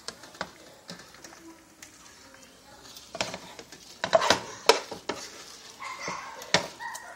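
Metal spoon stirring curry soup in a large stainless-steel stockpot, knocking and clinking against the pot several times, most sharply a little past the middle and again near the end.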